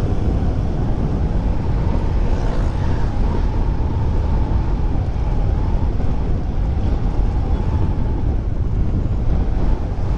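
Wind buffeting the microphone while riding a Honda Click 125 scooter, with its single-cylinder engine running steadily underneath.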